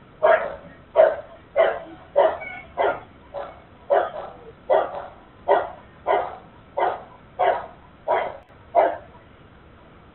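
A dog barking over and over at a steady pace of about one and a half barks a second, stopping about nine seconds in. Heard through a security camera's microphone, which cuts off the high end.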